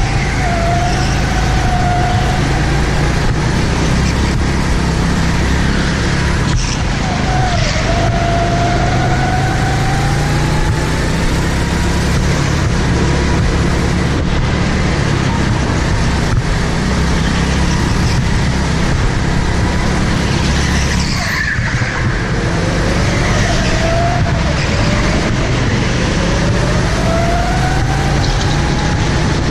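A go-kart engine heard from on board, running hard. Its pitch climbs steadily as the kart accelerates and drops back as it slows for corners, over a constant low rumble.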